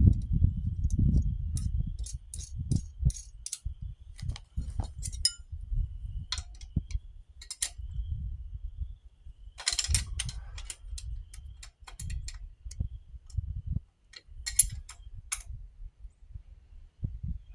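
Scattered metallic clicks and clinks of hand tools and bolts working on a steel excavator quick hitch, coming in short clusters over a low rumbling handling noise, as bolts are fitted and tightened.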